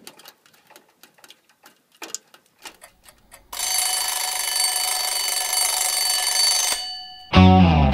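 Faint scraping and crunching of a shovel in snow. About three and a half seconds in, an electronic alarm clock sounds one steady buzzing tone for about three seconds. Near the end, loud rock music with electric guitar comes in.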